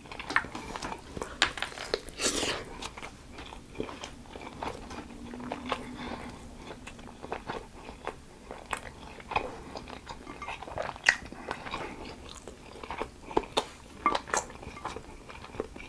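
Close-miked chewing and biting of sauced chicken wings: irregular crunches and wet mouth clicks.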